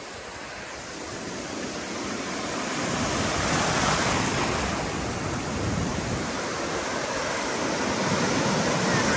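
Sea surf breaking and washing up the beach, swelling over the first three seconds and then staying loud.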